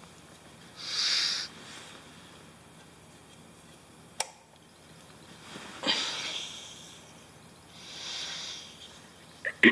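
A drowsy person in bed breathing out noisily three times: about a second in, around six seconds and, more faintly, around eight seconds. A single sharp click comes just past four seconds.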